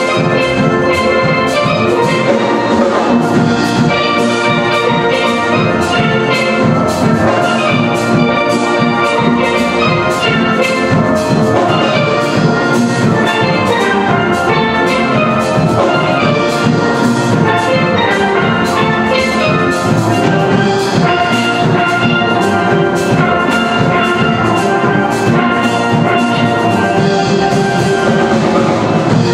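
Steel band playing a calypso: steel pans of several sizes ringing out melody and chords over a drum kit keeping a steady, busy beat.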